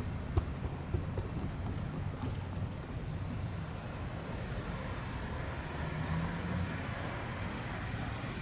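Steady low rumble of road traffic driving over the railroad crossing, with a couple of faint knocks about half a second and a second in.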